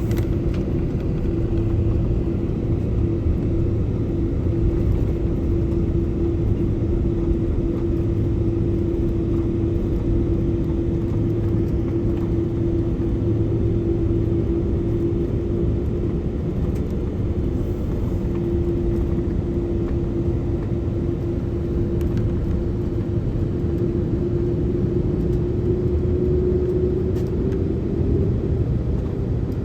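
Jet airliner's engines heard from inside the cabin: a steady rumble with one steady droning tone, which rises slightly in pitch near the end.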